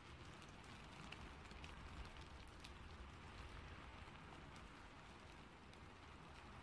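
Faint steady rain: a soft, even hiss with scattered light drop ticks.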